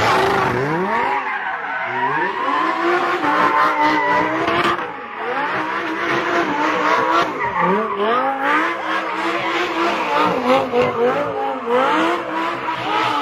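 Lamborghini doing a smoky burnout, its engine revving up and down again and again while the rear tyres squeal and spin on the pavement.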